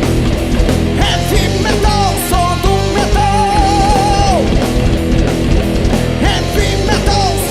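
Heavy metal band playing an instrumental passage: distorted rhythm guitars, bass and drums under a lead melody that bends between notes and holds one long vibrato note about three seconds in before sliding down.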